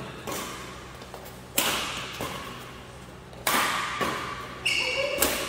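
Badminton rackets hitting a shuttlecock back and forth in a doubles rally: four sharp smacks, one every one and a half to two seconds, each ringing on in the hall. A short high squeak comes near the end.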